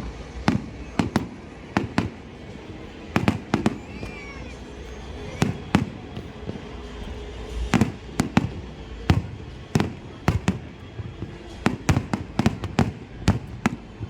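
Fireworks display: an irregular run of sharp bangs from bursting shells, at times several a second, with a brief whistling tone about four seconds in.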